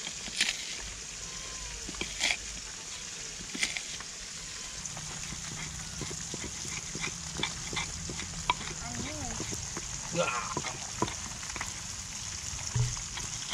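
Stone pestle crushing and grinding chilies, shallots and garlic in a stone mortar (cobek), with scattered sharp knocks of stone on stone.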